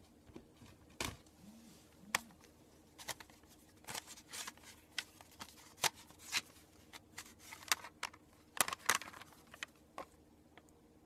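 Plastic CD jewel case being handled: a string of sharp, irregular clicks and taps as the hard plastic case is turned over and fingered.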